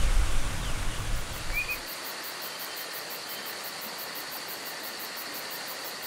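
Rushing water of a small woodland stream cascading over rocks, with insects trilling in a steady high whine and rapid high pulsing. A single short bird chirp comes about a second and a half in, and the low part of the rush drops away about two seconds in.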